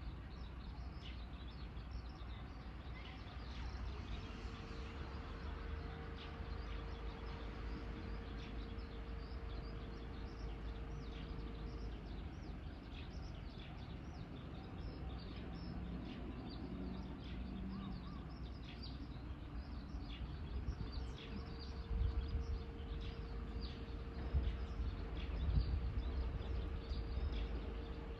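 Small birds chirping again and again over a steady low outdoor rumble, which swells with a few louder bumps in the last several seconds. A faint steady hum comes and goes twice.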